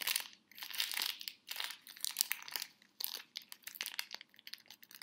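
Wrapping paper crinkling and tearing as a small wrapped gift is opened by hand, in short, irregular crackles and rustles.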